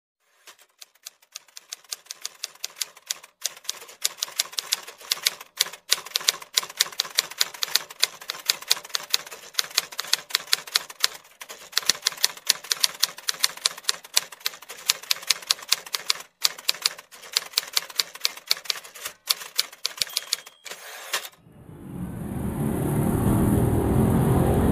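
Typewriter keys clacking in quick, uneven runs broken by short pauses: a typing sound effect for text appearing on screen. A little over 20 seconds in it cuts to the steady noise of street traffic.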